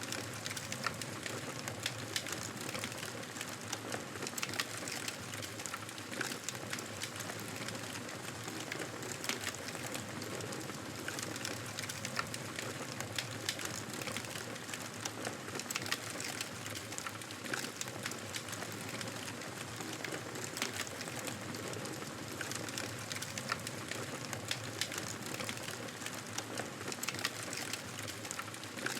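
Wood fire burning in a fireplace: a steady crackling hiss with frequent sharp pops and snaps at irregular intervals.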